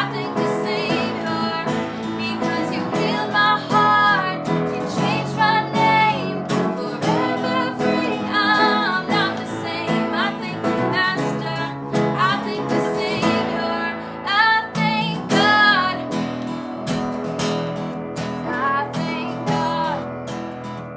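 Worship song played live: voices singing over strummed acoustic guitar and band, with the singing thinning out for the last few seconds while the guitar carries on.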